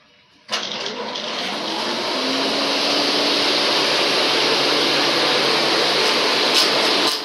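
Multi-spindle wood-turning copy lathe for pickaxe handles running, a steady loud whirring rush that starts suddenly about half a second in. A low hum joins it about two seconds in.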